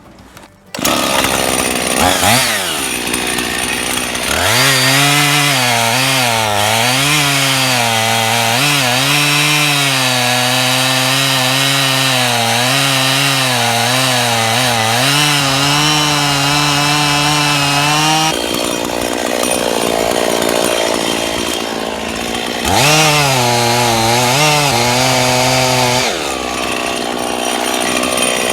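Husqvarna 55 two-stroke chainsaw revving and cutting through wood with a freshly sharpened chain, its engine note wavering under load. It makes one long cut and then, after a short break, a second shorter cut near the end.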